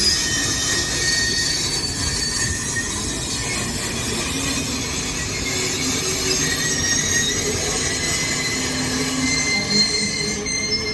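Loaded freight train's wagons rolling past, their steel wheels squealing in several thin high tones that come and go over a steady rumble.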